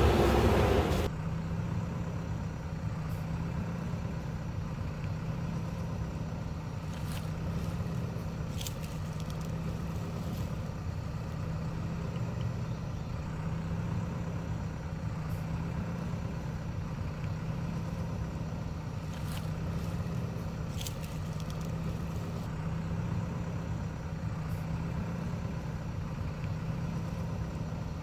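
JCB backhoe loader's diesel engine drops from working revs to a steady idle about a second in, with a few faint ticks over the idle.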